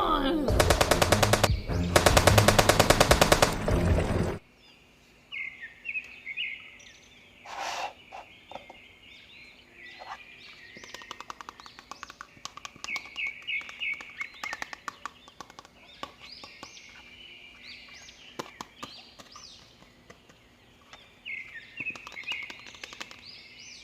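A loud, very fast rattle like automatic gunfire in two blasts over the first four seconds, then it cuts off. Faint birds chirping in short repeated calls follow, with scattered light clicks.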